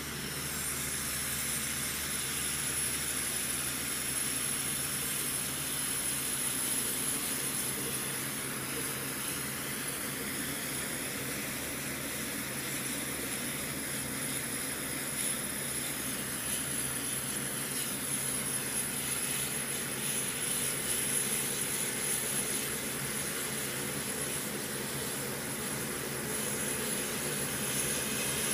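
A Lockheed C-130J Hercules transport taxiing with its four turboprop engines running: a steady high-pitched whine over the drone of the propellers. Midway, some tones slide slowly in pitch as the aircraft moves past.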